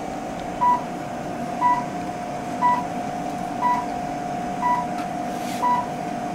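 Aspen Class IV therapy laser running, giving a short electronic beep about once a second over a steady tone. The regular beep signals that the laser is emitting.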